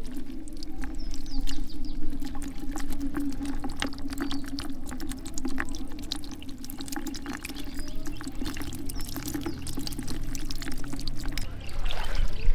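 Water pouring and splashing, with many small clicks and splashes throughout and a louder splash near the end.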